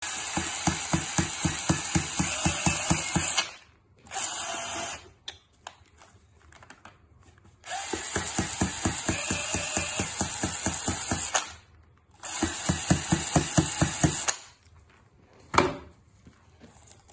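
Cordless drill spinning a cylinder hone inside a cylinder bore of a Rootes 1600 engine block, in four runs of a few seconds each, one of them brief, with a fast rhythmic chatter; the hone is cleaning rust and scale off the bore above a seized piston so the piston can be knocked out. A single sharp knock follows near the end.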